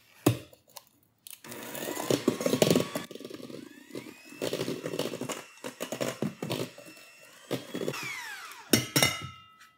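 Electric hand mixer beating egg whites and sugar in a metal bowl, its motor whine rising and falling in pitch as the beaters work, starting about a second in. It stops near the end with a few clinks of metal.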